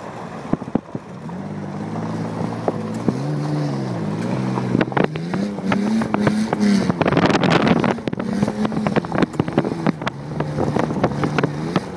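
Off-road vehicle's engine revving up and down repeatedly while driving over rough dirt, with many sharp knocks and rattles from the bumpy ground and a loud rushing burst about two-thirds of the way through.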